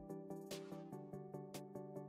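Quiet background music: sustained chords over a quick, steady beat of light clicks, with a cymbal-like swell about half a second in.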